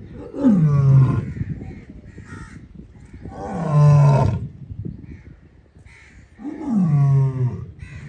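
A lioness calling: three deep calls about three seconds apart, each about a second long, sliding down in pitch and then holding low.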